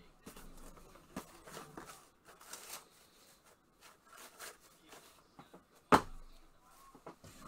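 Faint rustling and handling noises at a desk, scattered short scrapes and clicks, with one sharp knock about six seconds in.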